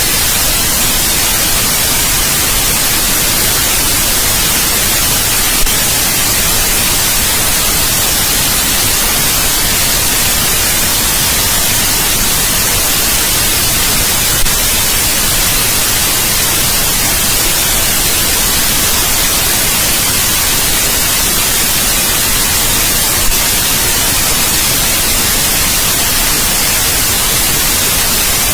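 Steady, loud white noise: an even hiss across the whole range, brightest in the highs, with three faint clicks about nine seconds apart.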